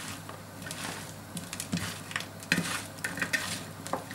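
Hands mixing and tossing sliced daikon radish with chili, ginger and garlic on an aluminium tray. The vegetable pieces make irregular crisp rustling and crunching sounds, several strokes a second apart.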